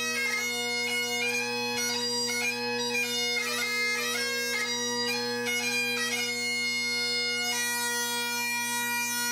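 Great Highland bagpipe played solo: steady drones under a quick, ornamented chanter tune, which settles into one long held note for the last couple of seconds.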